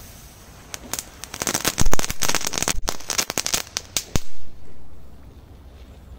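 A firecracker burning on ice, giving a fast run of crackling pops for about three seconds, then a muffled bang about four seconds in that throws up ice and water.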